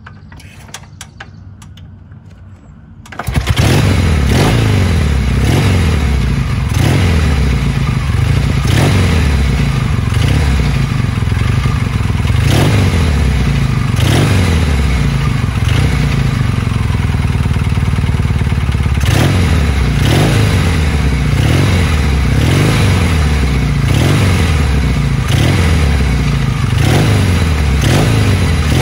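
1962 Norton 650SS's 650 cc parallel-twin engine being kick-started: a few knocks of kicking, then it catches about three seconds in and runs loudly with a steady pulsing beat, breathing through standard Atlas-style silencers.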